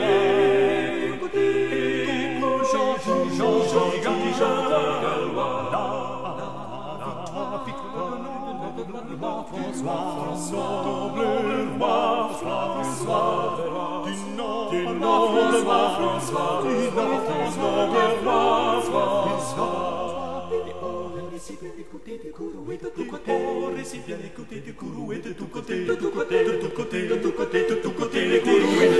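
Soundtrack music of several voices singing together in a choral style, fading somewhat past the middle and swelling again near the end.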